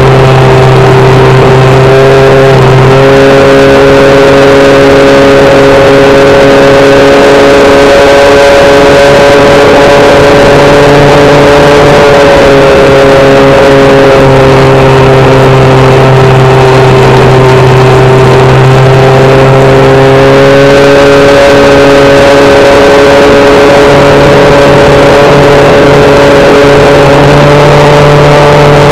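Electric motor and propeller of a HobbyKing SkyEye FPV model plane in flight, a loud steady whine with a lower hum beneath it. The pitch dips and rises a few times as the throttle changes, over a rushing noise.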